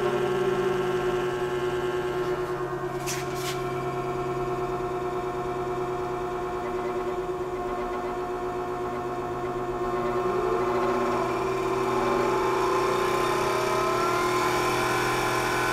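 Dynabrade 64900 variable-speed belt sander, a 90-volt DC 1 hp motor, running steadily with a whine made of several steady tones, a little louder from about ten seconds in. Two short clicks about three seconds in.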